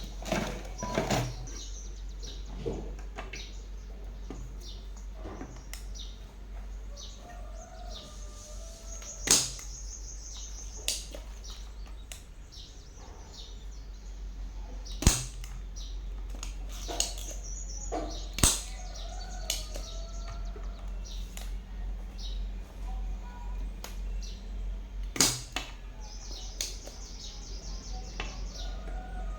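Scattered sharp clicks and knocks, as of tools and parts being handled during repair work, with birds chirping in the background and a steady low hum underneath.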